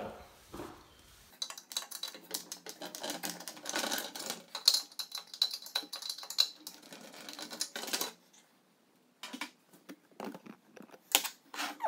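Hand screwdriver turning screws out of an exercise bike's plastic side cover: a dense run of small clicks and scrapes for several seconds, then a pause and a few separate sharp clicks and knocks near the end.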